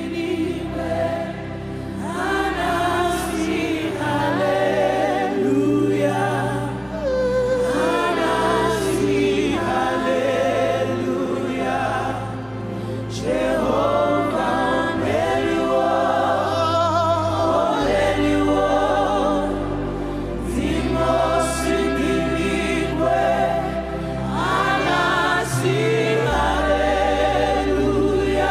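Gospel worship song sung live by a choir and congregation over sustained keyboard and bass chords that change every few seconds.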